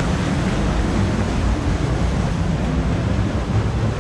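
Steady rushing water of a spring-fed creek flowing through a cave, a constant noise heaviest in the low end.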